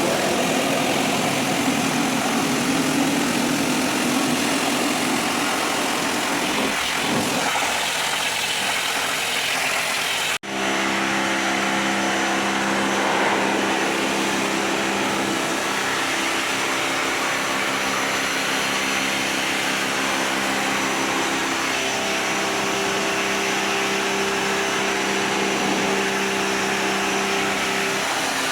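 Pressure washer pump running steadily with the hiss of its water jet. About ten seconds in the sound drops out for a moment, and the motor's hum comes back at a different pitch.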